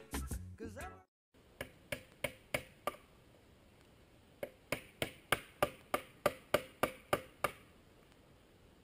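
A rock used as a hammer striking a 10-inch steel bolt during a trailside repair of a motorcycle chain. There are five sharp strikes at about three a second, a pause of about a second and a half, then about eleven more at the same pace.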